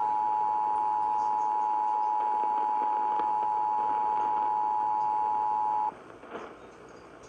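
Emergency Alert System two-tone attention signal: two steady tones sounding together just under 1 kHz (853 and 960 Hz), cutting off abruptly about six seconds in and leaving faint radio hiss.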